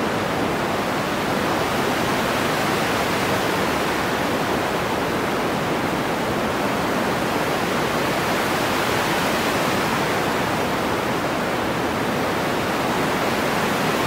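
Pink noise through an EQ, with a high-pass filter near 200 Hz and a low-pass filter swept by hand between about 1 and 2 kHz. It makes a rushing hiss at an even level, thin in the lows, whose brightness shifts as the filter moves. This is the base layer of a synthesized ocean-wave sound, waves coming in and out.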